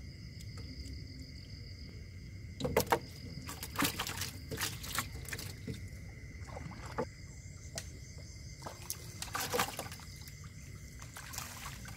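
Water splashing and sloshing in irregular bursts, starting about three seconds in, as a hand net is worked through the water to scoop fish.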